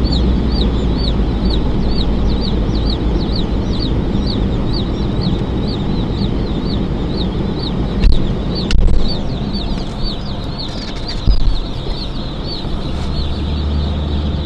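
Baby chicks peeping continuously, a quick run of short high peeps about two or three a second, over the steady low rumble of a vehicle driving. A few knocks sound about two-thirds of the way through.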